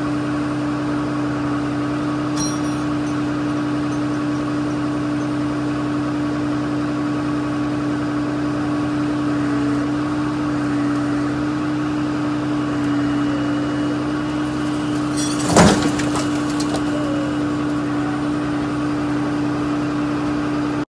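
A recovery truck's engine runs steadily with a constant hum while it winches. About 15 seconds in comes a single loud crash and rattle as the rolled-over pickup drops back onto its wheels.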